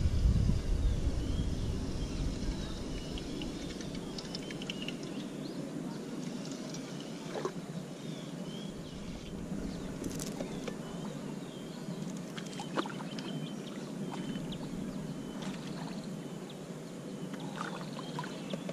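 Steady outdoor rushing noise on a GoPro microphone, with a low rumble in the first second. Small birds chirp repeatedly over it, and there are a few scattered sharp clicks.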